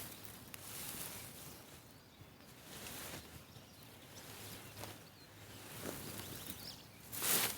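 Rustling and crackling of cut fodder being handled and bundled, with a loud rustle near the end.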